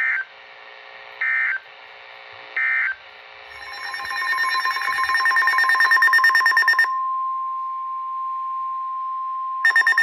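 Weather radio emergency alert tones. First come three short bursts of data tone, the end-of-message codes closing the previous alert. Then a fast-pulsing electronic alarm gives way about seven seconds in to a steady single-pitched warning tone, and the fast pulsing returns near the end.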